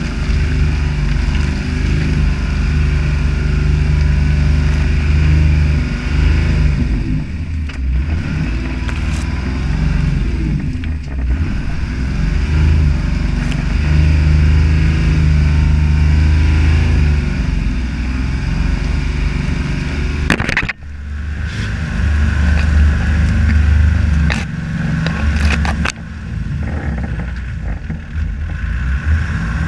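Toyota Land Cruiser HJ61's 12H-T turbo-diesel straight-six running under load off-road, its pitch rising and falling with the throttle, over the noise of tyres in mud and plants brushing the body. About two-thirds through comes a sharp knock, and the engine keeps running.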